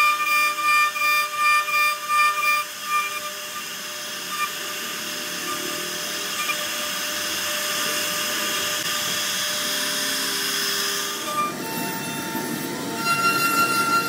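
CNC router spindle running and cutting wood: a high steady whine over a hissing cutting noise. The whine pulses for the first couple of seconds, and its pitch shifts about eleven seconds in.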